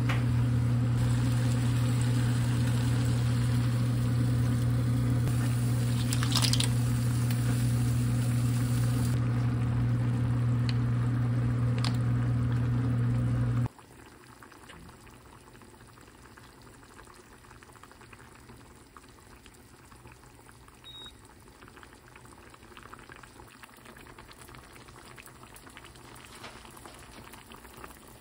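A steady low machine hum over the sizzle of meat and onions stir-frying in an enamel pot, with a spoon scraping once or twice. About halfway through the hum cuts off suddenly, leaving only the faint bubbling of a soft-tofu stew simmering.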